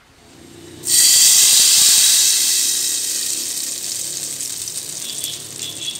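Hot-oil tempering (phoron) of dried red chilli and whole spices sizzling loudly. It starts suddenly about a second in and slowly dies away.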